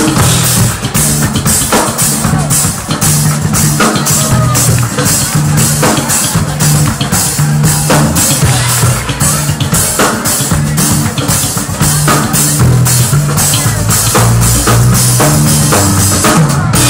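Live band playing an instrumental groove: a drum kit keeps a steady beat under an electric bass line.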